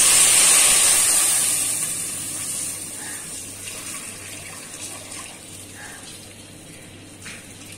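Milk poured from a jug into a hot steel pot of vermicelli browned in ghee: a loud hiss and sizzle as the cold milk hits the hot pan. It fades over the first couple of seconds into a quieter, steady pouring and splashing as the pot fills.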